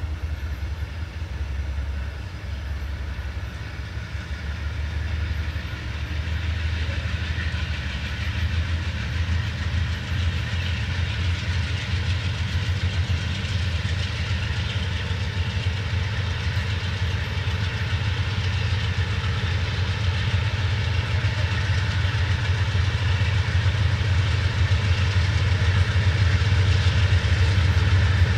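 Diesel freight locomotive approaching, its engine rumble growing steadily louder.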